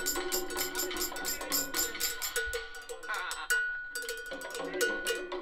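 Mounted cowbell struck with a bundled-rod stick in a fast, repeating Afro-Cuban cowbell pattern, each hit ringing. The strikes break off briefly about three seconds in, then pick up again.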